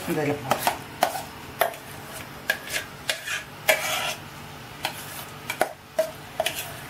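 A wooden spatula knocking and scraping against a frying pan as bubbling jaggery syrup is stirred, with utensil clinks about halfway through as mashed banana paste is scraped into the pan. The knocks come irregularly, roughly two a second.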